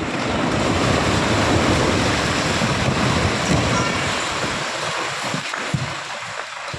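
Part of a building collapsing during demolition: a long rushing rumble of falling masonry and debris that swells in, holds for a few seconds and then dies away.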